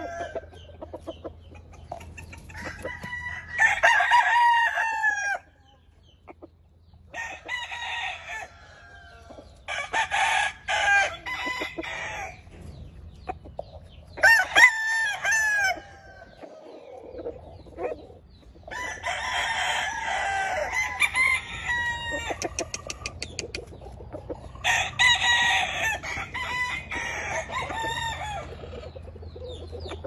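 Roosters crowing one after another, about six crows of one to three seconds each spread through the stretch, with some clucking between them.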